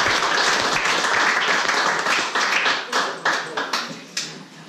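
A small audience applauding. The dense clapping thins out about halfway through into a few separate claps and dies away near the end.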